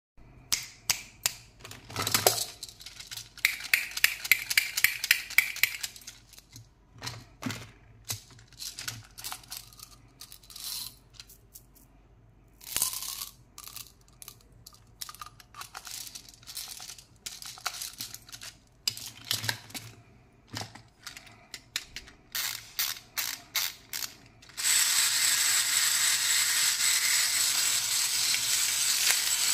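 Hard plastic toys and candy packaging being handled and knocked together: irregular clicks, taps and rattles with short pauses. About twenty-five seconds in, a steady, louder hissing whir with a thin high tone takes over.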